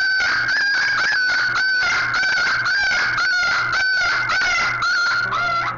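Beagle puppy screaming in pain, high shrill cries repeating about two to three a second without a break, as a needle is pushed into its head without anesthetic to drain fluid from a wound.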